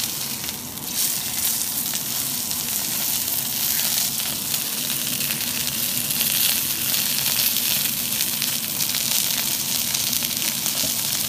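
Thick rump steak sizzling steadily in hot oil in an iron frying pan.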